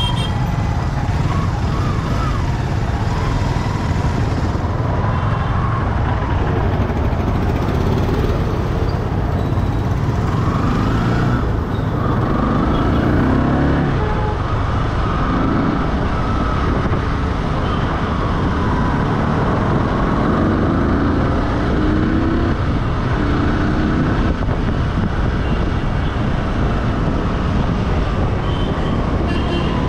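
Steady low rumble of a vehicle driving along a road, engine and tyre noise mixed, with the engine note swelling briefly now and then.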